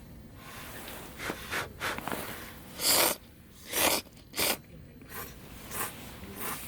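A person eating: a run of short, noisy mouth sounds of biting and chewing, the loudest three coming about three to four and a half seconds in.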